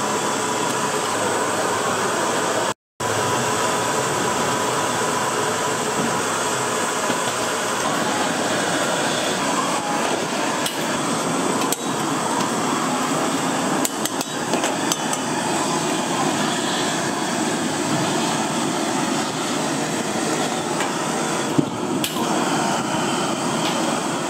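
Steady rushing noise of a gas stove burner under a pot of congee, with a few light clinks of a metal ladle against the pot.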